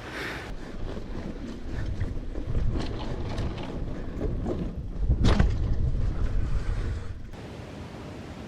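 Mountain bike riding over a trail, with wind buffeting the camera microphone and the bike rattling and knocking over the ground. A louder knock comes about five seconds in, and the noise eases off about seven seconds in.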